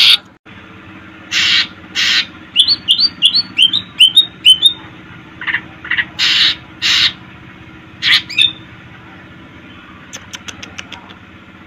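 Greater green leafbird (cucak ijo) singing: loud harsh squawking notes broken up by a quick run of whistled chirps that rise and drop, with a faint burst of rapid high ticks near the end.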